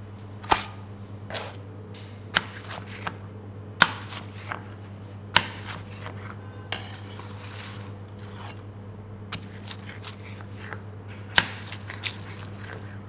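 Metal kitchenware clinking and knocking: about a dozen sharp, irregular strikes, with a short scraping sound about seven seconds in. A steady low hum runs underneath.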